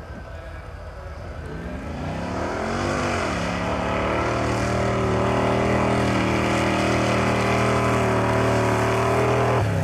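Mud-drag racing vehicle's engine revving up in a rising pitch, then held at high revs and growing louder, until the revs drop off abruptly near the end.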